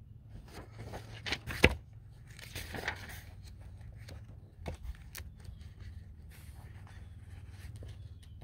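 Handling noise: rustling and scraping with several sharp clicks, the loudest about one and a half seconds in, over a steady low hum.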